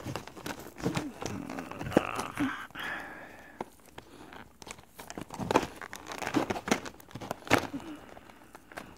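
Stiff plastic blister packaging crinkling and crackling as hands flex and pry at it to open it, with irregular sharp clicks and snaps.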